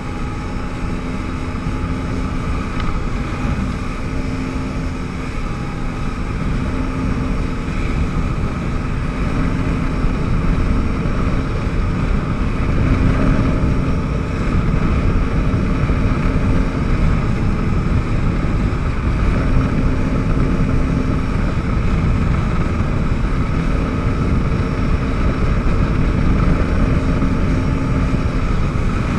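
Yamaha WaveRunner personal watercraft running at speed across the water: a steady engine drone over the rush of spray and wind, building slightly in loudness over the first several seconds and then holding.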